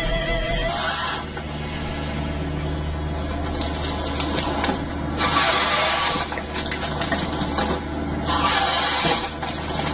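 Heavy tree-cutting machine running with a steady low engine hum, broken by loud rushing bursts of noise lasting about a second each, three times.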